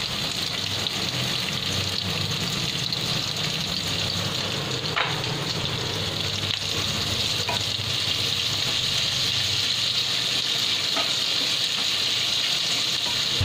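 Sliced onions sizzling steadily as they fry in hot oil and ghee in a nonstick kadai while being stirred with a spatula, with a few light taps of the spatula against the pan.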